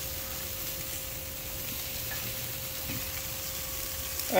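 Burger patties sizzling steadily on the grates of a propane gas grill while they are being flipped.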